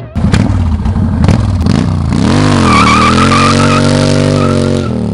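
V-twin cruiser motorcycle doing a burnout: the engine revs up and is held high while the spinning rear tyre squeals with a wavering whine, then the revs drop near the end.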